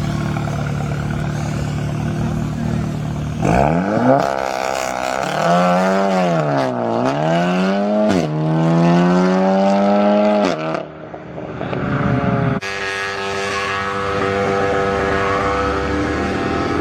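Modified car engines. First a steady engine note, then from about three and a half seconds in an engine revving hard, its pitch climbing, dipping and climbing again before falling away near eleven seconds. After a sudden change another engine holds a steady note that begins to rise near the end.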